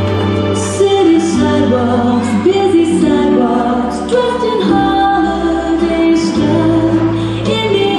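Music: a song with a female singing voice over instrumental backing, with long held notes.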